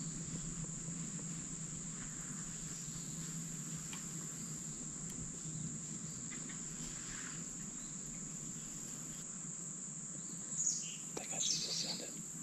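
Steady, high-pitched chorus of insects, with a short cluster of brief chirps about ten and eleven seconds in.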